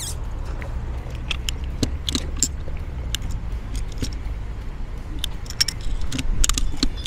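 Wind rumbling on the microphone, with scattered light clicks and taps throughout.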